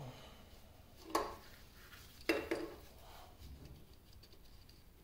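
A wrench clinking against a stubborn nut on a lathe's motor-mount bracket: one sharp clink about a second in, then two more close together a little past two seconds.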